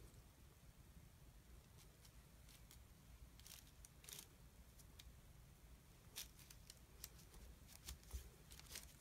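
A few faint bursts of scraping and crackling as a thin blade is pressed down through a loaf of melt-and-pour glycerin soap, its top crusted with brittle soap curls. The bursts come about four seconds in and again several times near the end.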